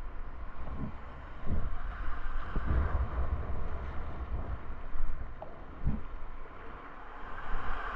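Whitewater rapids rushing steadily around a kayak, with a low rumble of buffeting and several dull thumps.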